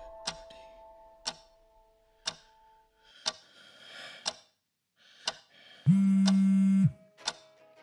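Clock ticking once a second. About six seconds in, a smartphone on the desk buzzes loudly for about a second on vibrate with an incoming call.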